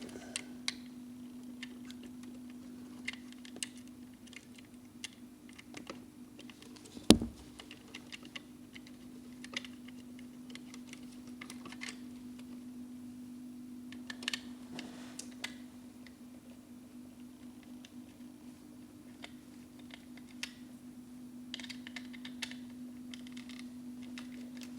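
Scattered light clicks and taps of a screwdriver and a plastic telephone socket being handled as wires are fastened into its terminals, with one louder knock about seven seconds in, over a steady low hum.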